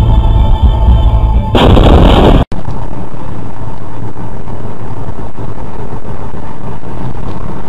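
Background music, then about a second of loud, harsh noise that breaks off abruptly, followed by a steady low road noise of a moving vehicle.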